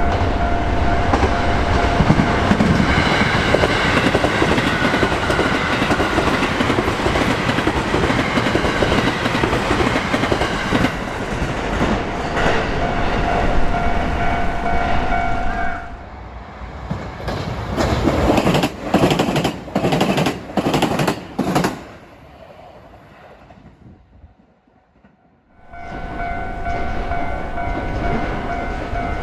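Japanese railroad crossing warning bell ringing steadily while a JR Hanwa Line train runs through the crossing with a loud rumble of wheels on rail. About halfway through the rumble falls away to a row of sharp wheel clacks over the rail joints. After a short quieter spell near the end, the crossing bell rings on again.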